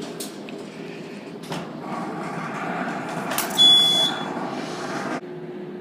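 A short high electronic beep from a fire alarm panel sounding its trouble signal, about three and a half seconds in, the sign that the system is still in trouble mode. It sits over a rushing noise that cuts off suddenly just after five seconds.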